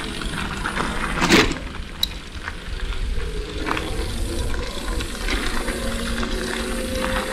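Bicycle rolling down a steep, rough track: steady tyre and wind noise with the bike rattling, and a sharp knock a little over a second in.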